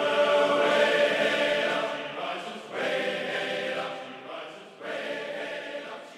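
Choral music: voices singing long sustained chords, each new chord swelling in and then dying away, the whole fading out toward the end.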